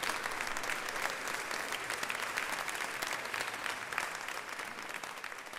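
Audience applauding, a dense crowd of hand claps that begins to thin and fade near the end.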